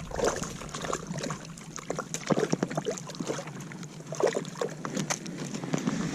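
Scattered light clicks, knocks and soft thuds as a hooked bass is landed and handled at an ice-fishing hole.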